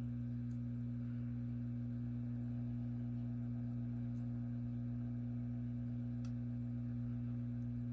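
Hot air rework station running at 350 °C on a charge port to desolder it: a steady low electrical hum with a light airy hiss and a few faint ticks.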